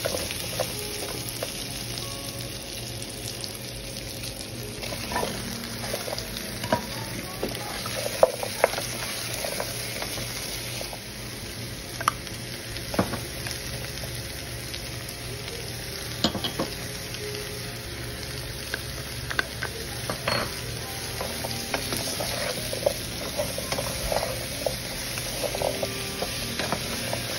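Pork and diced vegetables sizzling in a frying pan, stirred with a wooden spatula that knocks and scrapes against the pan now and then.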